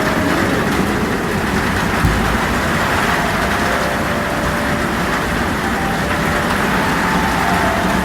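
Heavy rain falling steadily on a tin roof, mixed with storm wind: a dense, unbroken noise, with a few faint whistling tones coming and going.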